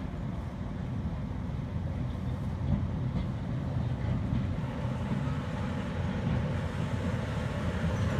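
Steam locomotive drawing slowly towards the platform, heard as a steady low rumble.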